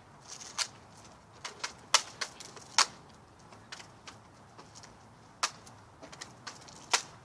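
Sharp, irregular clicks and snaps from a pump BB gun being handled between shots, as it is loaded and pumped. The loudest clicks come about two and three seconds in.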